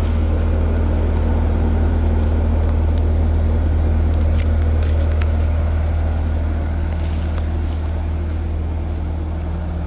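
An engine idling steadily as a low, even drone that eases off a little toward the end, with scattered light crackles of footsteps through grass and brush.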